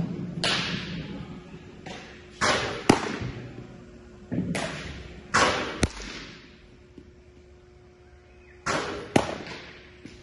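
Baseballs smacking into a catcher's mitt: about eight sharp pops, several in pairs about half a second apart, each with a short echoing tail. A faint steady hum runs underneath.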